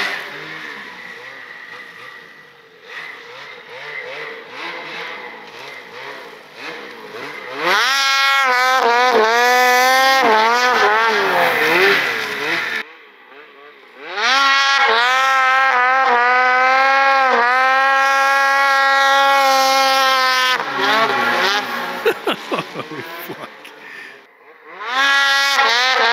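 Snowmobile engine revving as the sled rides across a snowy field, fading as it moves off, then climbing to a high, nearly steady rev for several seconds. It drops away briefly about halfway and revs up again near the end as the sled comes back.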